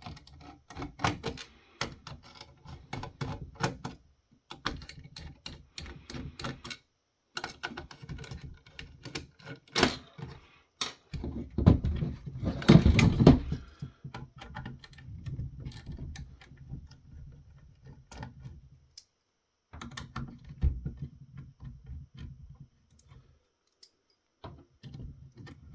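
Screwdriver clicking and scraping as screws are worked loose and taken out of an electronic siren controller's heavy metal case, with irregular clicks and small knocks from handling the parts. A louder, busier stretch of rattling comes about halfway through.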